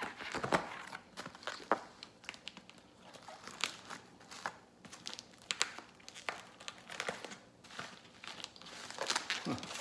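A cardboard shipping box being cut open with a small pen knife and its flaps and packing handled: irregular scratching, crinkling and crackling of cardboard and packing material.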